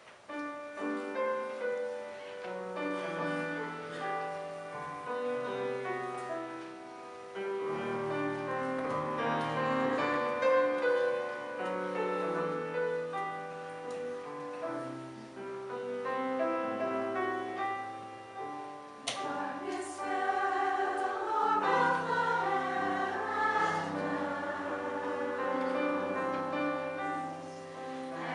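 A community chorus singing in several-part harmony, holding sustained chords that change every second or two. The singing grows fuller and louder about twenty seconds in.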